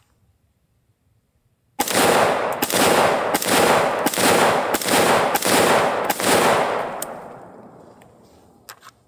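AR-15 rifle in 5.56 firing a string of about eight quick semi-automatic shots, a little under a second apart, starting about two seconds in. Each shot echoes, and the last one rolls away over the final two seconds.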